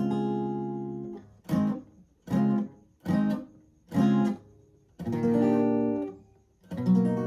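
Guitar tuned a half step down, strummed through a chord progression. A ringing chord is followed by four short, clipped strums about a second apart, then two longer ringing chords near the end.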